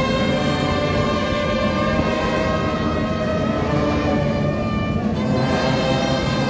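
Live procession music played as long, steady held chords.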